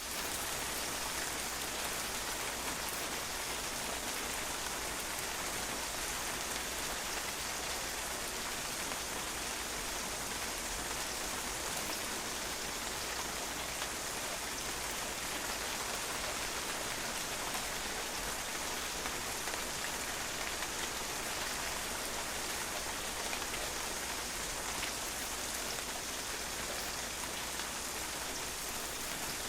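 Steady rain falling on a patio, an even hiss of many drops splashing and pattering on the hard surface.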